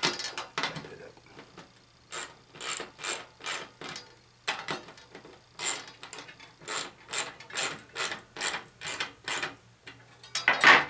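Small socket ratchet clicking in short, even strokes, about two or three a second, as it tightens a nut on the screw holding the coax ring connectors. Near the end comes a single louder clatter.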